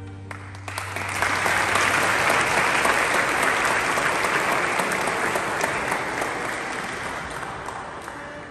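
A string orchestra's last chord dies away, and an audience starts applauding about a second in; the clapping fades out near the end.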